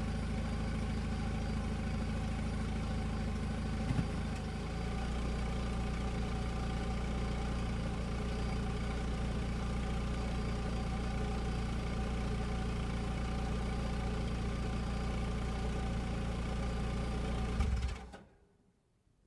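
Car engine idling steadily. About four seconds in there is a short click, and the low hum settles to a slightly different note. Near the end the engine sound cuts off and dies away within about a second.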